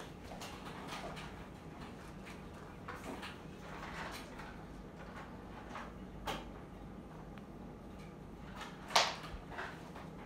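Ceiling fan running with a steady low hum, under scattered light knocks and clicks, with a sharper knock about nine seconds in.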